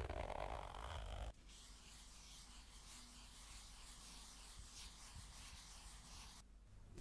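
Close-miked ASMR trigger: a louder sound stops abruptly about a second in. It is followed by a faint, fine, scratchy rubbing right at the microphone, which stops shortly before the end.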